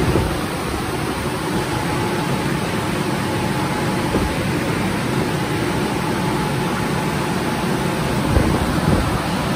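Rotating brushes of an Istobal M'NEX 22 rollover car wash scrubbing the car, heard from inside the cabin as a steady rushing swish with a faint steady whine from the machine.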